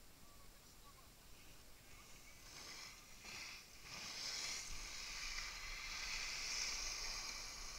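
Skis sliding over snow: a faint hiss that starts about two and a half seconds in and grows louder from about four seconds as the skier picks up speed, with a faint low rumble of wind on the microphone from about five seconds.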